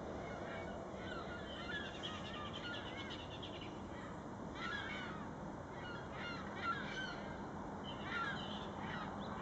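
A flock of gulls circling in the air and calling, many short overlapping calls at once: a racket.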